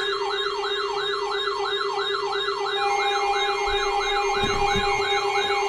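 Electronic yelp siren sweeping rapidly up and down, about four times a second, over steady droning tones. A second steady tone joins about halfway through, and the low drone stops near the end.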